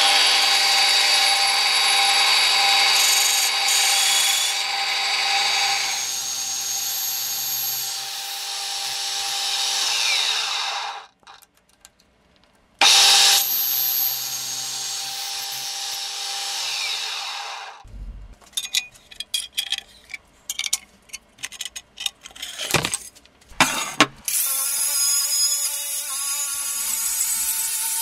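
A machine spindle runs a large hole cutter through a rusty steel plate: a steady whine with many tones that winds down about ten seconds in, then runs again briefly after a short pause and winds down once more. A string of irregular knocks and clatters follows. From about 24 seconds an angle grinder with a sanding disc runs steadily on a steel plate.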